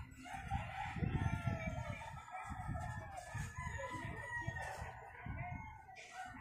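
Birds calling in drawn-out, wavering calls, over low, irregular rumbling.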